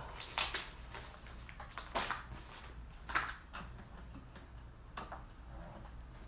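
A few scattered light taps and knocks, handling noise, over a low steady hum.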